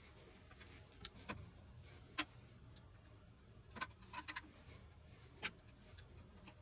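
A handful of faint, irregular clicks and light taps from a copper tee fitting and copper pipe being handled and fitted together.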